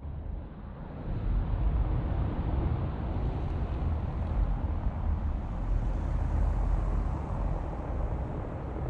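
Outdoor town-square ambience: a steady low rumble that grows louder about a second in and then holds.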